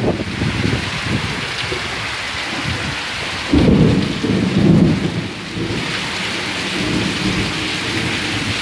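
Heavy rain falling steadily, with a low rumble of thunder starting about three and a half seconds in and lasting about two seconds.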